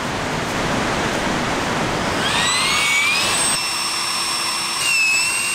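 Small electric air pump inflating an inflatable camping pillow: a rushing hiss of air, and from about two seconds in a motor whine that rises in pitch and then holds steady.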